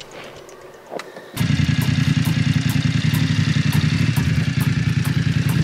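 Adventure motorcycle's engine starting abruptly about a second in, then running steadily at idle with a fast, even pulse.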